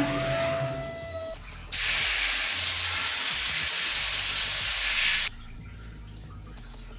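CNC router's 40,000 RPM ATC spindle whining with a steady high tone as it cuts, stopping about a second in. Then a loud steady hiss starts suddenly, lasts about three and a half seconds and cuts off.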